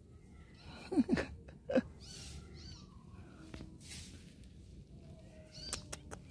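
Cat meowing twice in short calls about a second in, with a few faint high chirps around them.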